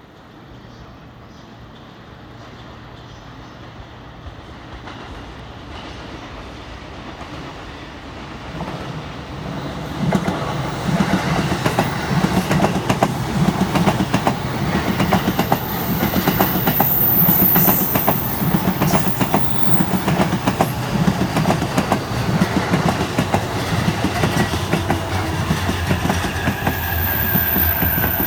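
A 15-car electric commuter train approaches and runs into the platform, getting louder as it nears, its wheels clicking over the rail joints. Near the end a falling whine is heard as it slows.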